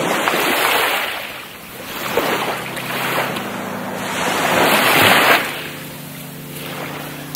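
Small waves of a calm sea washing onto a sandy shore, rising and falling in gentle surges about every two and a half seconds.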